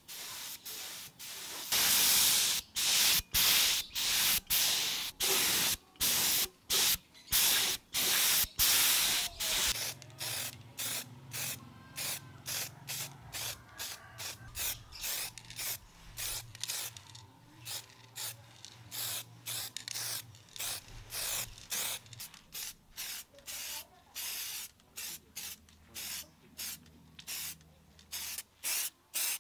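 Repeated hissing bursts of paint being sprayed onto a bicycle frame. The first bursts are louder and longer, from a compressed-air spray gun laying on epoxy primer. After them come shorter, quieter puffs from an aerosol spray paint can, about one or two a second.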